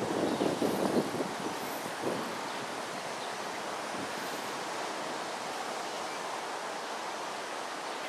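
Outdoor background noise: an uneven, gusty rumble for about the first second, then a steady, even hiss.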